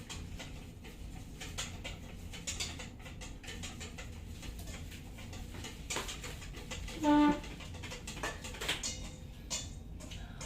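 Light clicks and scrapes of a spatula working a pancake in a frying pan, over a low steady hum. About seven seconds in there is one short, high-pitched squeak.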